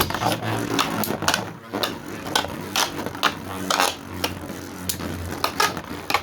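3D-printed Beyblade spinning tops released into the stadium, then spinning with a steady low whir while they knock and scrape against each other and the stadium walls in frequent sharp clicks.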